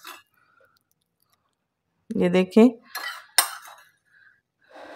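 Metal spoon clinking and scraping against a glass bowl while scooping out soft cubes of set jelly, with a few sharp clinks about three seconds in and a softer scrape near the end. A brief murmured voice comes just before the clinks.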